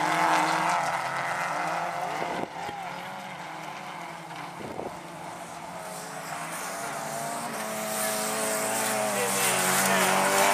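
Engines of small stock-hatchback autograss racing cars running hard on a dirt oval, their pitch rising and falling as they accelerate and change gear. The sound drops suddenly about two seconds in, then grows steadily louder as two cars come close and pass.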